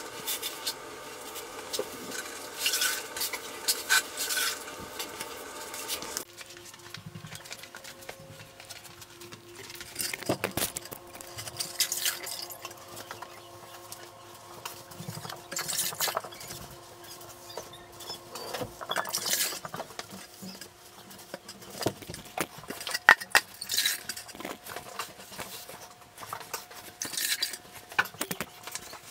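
A wet grout sponge scrubbing and wiping freshly grouted porcelain plank tile, with water splashing and dripping, in short irregular strokes: the grout-haze wash-down. A faint steady hum underneath changes abruptly twice, about six seconds in and a little past twenty seconds.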